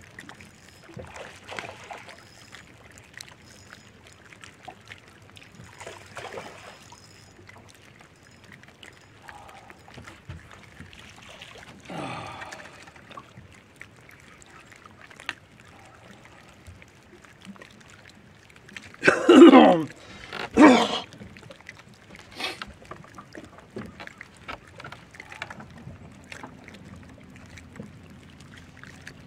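A small bass is landed and handled from the deck of a bass boat: faint water sounds and scattered small clicks, with two loud, drawn-out vocal calls falling in pitch about 19 and 21 seconds in. A steady low hum starts near the end.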